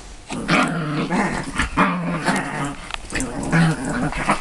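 Dog growling in a run of drawn-out, rising and falling vocal bursts, the play growl of a dog being teased over its sweater.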